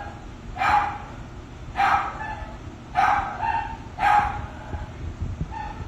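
A dog barking over and over, about one bark a second, four strong barks and a weaker one near the end.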